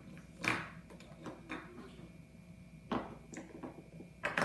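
Small plastic toy figures being handled and set down, a few light clicks and knocks spread irregularly, the loudest about half a second in and near the end.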